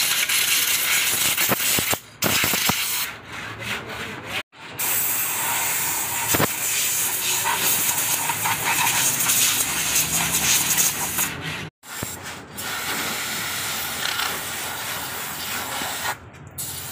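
Compressed-air blow gun hissing loudly as it blasts dust out of a Honda Vezel hybrid battery's cooling fan and air duct, cutting off briefly a few times.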